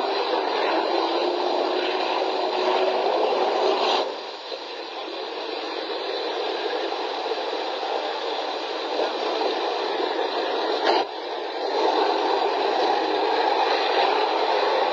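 T-72 tank ploughing through a snowy stream: engine noise mixed with churning, splashing water, heard as a steady noisy rush in a thin old recording. The sound changes abruptly twice, about four and eleven seconds in.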